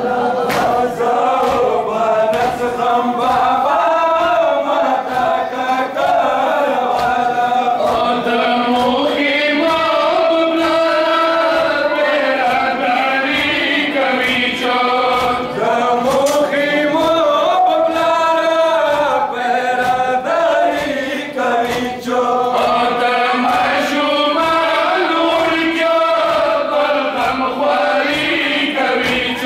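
A crowd of male mourners chanting a noha (Muharram lament) in unison, with a steady beat of slaps from matam chest-beating.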